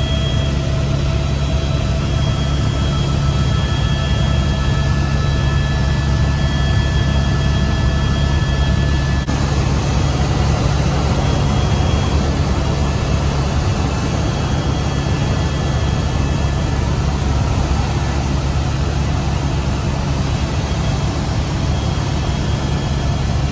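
Helicopter in flight heard from inside the cabin: a loud, steady low drone of rotor and engine, with a few faint steady whines above it.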